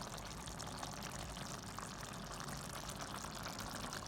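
Fish and vegetables in coconut milk simmering in a pot, a faint, steady bubbling.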